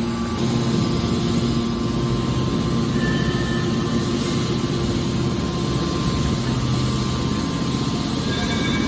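Hydraulic scrap car baler running with a steady mechanical hum.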